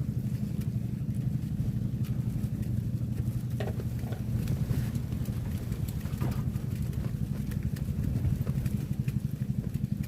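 Small boat engine running steadily at an even pitch, with a few faint ticks.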